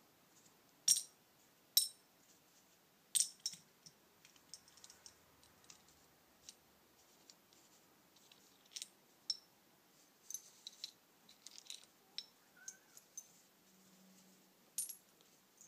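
Small metal parts clinking and clicking as they are moved and set down on a workbench. A few sharp, ringing clinks come in the first few seconds, then scattered lighter ticks and taps.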